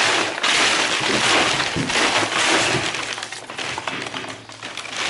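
Plastic packaging crinkling and rustling as a parcel is rummaged through. It is dense and loud for about three seconds, then thins to scattered crackles.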